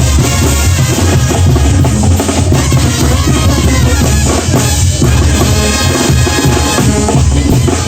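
Mexican banda music from two brass bands playing together, with the drums to the fore (bass drum and snare) over a strong low bass line.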